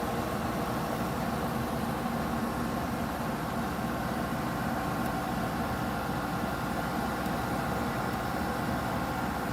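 Haier window air conditioner running with its compressor and fan on: a steady hum with a few constant tones over the rush of the fan.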